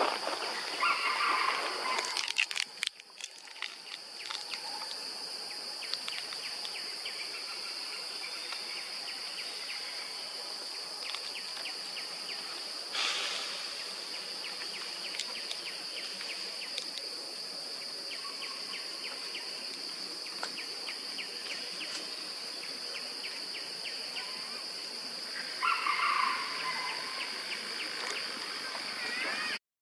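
Forest ambience dominated by a steady, high-pitched insect drone, with crackling of leaves and branches in the first few seconds. Short animal calls come about a second in and again near the end.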